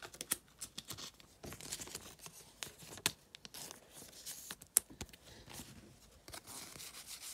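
A stack of 2021-22 O-Pee-Chee hockey trading cards being handled, with the cardboard cards sliding, rustling and tapping against each other in quick, irregular clicks.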